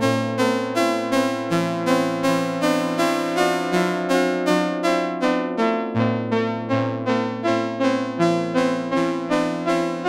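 Dreadbox Nymphes six-voice analog synthesizer playing a steady pulse of short repeated chord notes over held bass notes that change every few seconds, run through an Eventide Rose delay.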